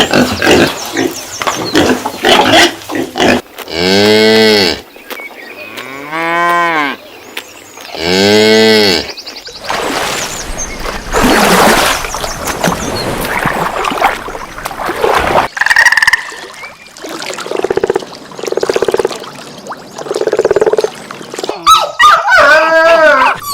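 Cattle mooing: three long, loud moos a couple of seconds apart, among other animal calls, with a series of higher-pitched calls near the end.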